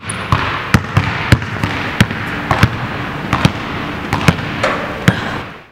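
A basketball bouncing on a hardwood court, one sharp bounce roughly every half-second to second, a few coming in quick pairs, over a steady hiss. The sound fades out near the end.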